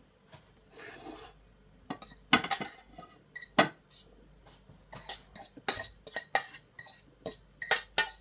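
Metal spoon scraping and knocking against a stainless steel saucepan as vegetables are spooned out onto a plate. A soft scrape comes about a second in, then a run of irregular sharp clinks and knocks from about two seconds on.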